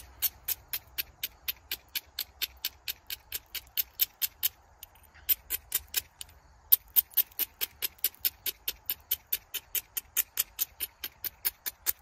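Rapid light tapping of a knapping tool on a flint blade, about four sharp ticks a second, with two brief pauses. It is the small, regular strikes of edge and platform work as the piece is thinned.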